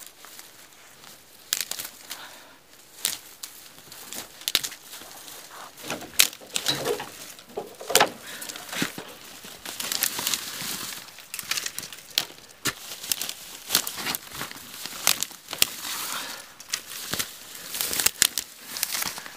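Dry grass and brittle stalks rustling, crackling and snapping as they are pulled up and torn away by hand, in an irregular string of sharp cracks and rustles.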